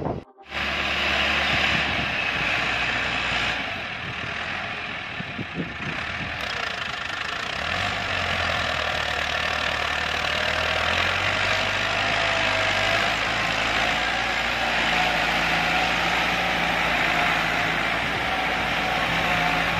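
Massey Ferguson 385 tractor's four-cylinder diesel engine running under load as it pulls a chisel plow through the soil, its note shifting a few times. The sound cuts out briefly just after the start.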